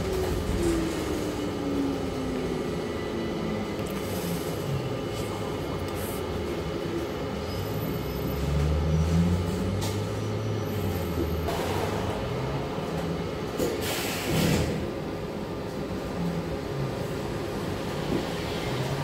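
City bus running, heard inside the cabin. A drivetrain whine falls in pitch over the first few seconds as the bus slows. A lower engine note then rises about halfway in, and two short bursts of noise come about two-thirds of the way in, all over a steady cabin hum.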